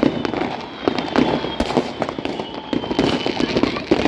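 Fireworks and firecrackers going off all around: a dense, unbroken run of bangs and crackles, several a second and overlapping, with a faint high whistle sliding slowly down in pitch.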